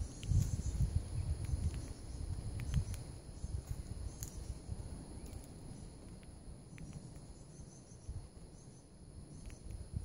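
Steady high insect trill with a few brief high bird chirps and ticks, loudest near the start and about four seconds in, over a low, uneven rumble.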